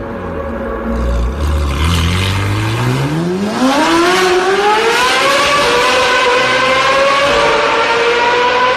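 Car engine revving sound from a homemade vehicle sound simulator: the pitch climbs smoothly for a couple of seconds, then holds high and steady.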